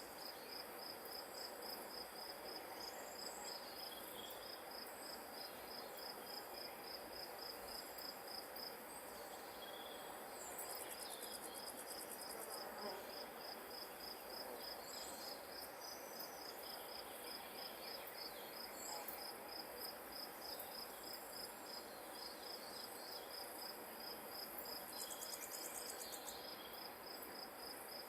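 Field insects chirping: a high, regular pulsed chirp about three or four times a second, with a second, higher buzzing insect joining briefly twice, over a faint steady outdoor hiss.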